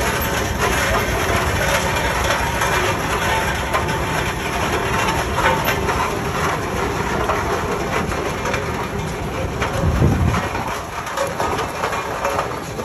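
Case steam traction engine running as it drives slowly along, a steady mechanical noise with a louder low rumble about ten seconds in.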